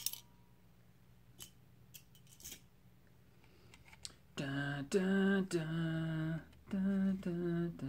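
A few faint clicks as the metal lightsaber hilt is handled and opened, then a man hums a short tune in held notes, changing pitch about every half second, for the last few seconds.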